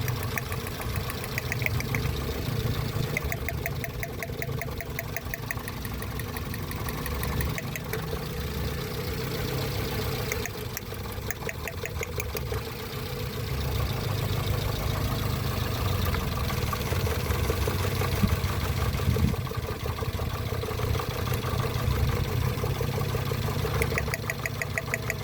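Vehicle engine idling steadily while it is checked for a cylinder misfire, with patches of fast, light ticking coming and going over the running.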